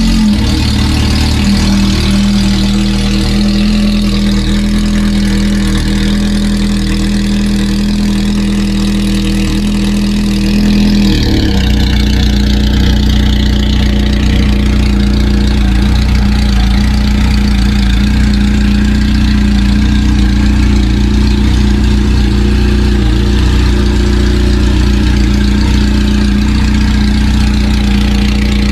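Motorcycle engine idling steadily through a Tokyo Tekkan exhaust. About eleven seconds in, the note turns a little louder and deeper.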